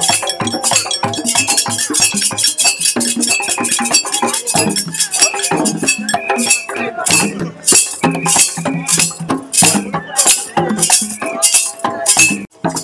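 West African hand drums and other hand percussion played live in a fast, driving rhythm of closely spaced strokes. The sound drops out briefly near the end.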